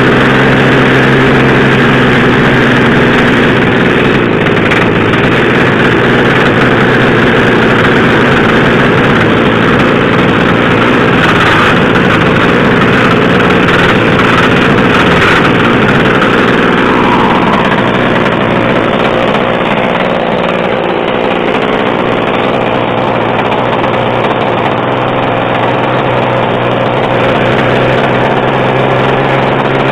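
O.S. Alpha .56 four-stroke glow engine of an RC outrigger hydroplane idling steadily, with the four-stroke's putt-putt exhaust note.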